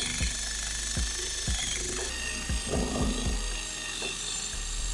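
Cordless drill spinning a wire wheel brush against the rusty vise body, scrubbing off rust, over background music with a beat.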